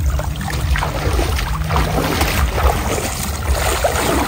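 Shallow floodwater sloshing and splashing irregularly as people wade through it and work a net, over a steady low rumble.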